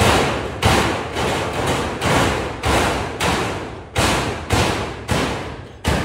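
Hammer blows on corrugated metal roofing sheets over a steel roof frame, about two a second, each strike ringing on through the sheet.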